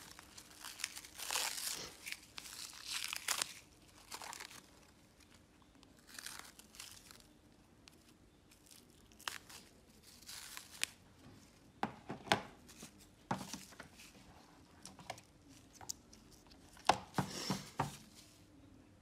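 Clear plastic wrap crinkling and tearing as it is peeled off a phone's screen, densest in the first few seconds and then in shorter bursts. Several sharp clicks and taps come in the second half.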